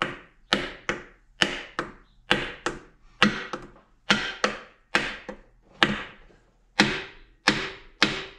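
Hammer knocking on a wooden block set on a piston, tapping the piston down into its cylinder during an engine rebuild. The sharp knocks come mostly in quick pairs, about one pair a second, each with a brief ring.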